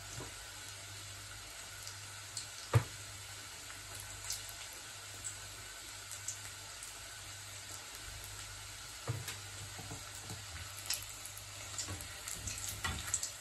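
Arancini rice balls deep-frying in a saucepan of hot oil: a steady sizzle with scattered crackles, one sharp crack about three seconds in. Near the end, tongs click against the balls and pan as they are turned and lifted out.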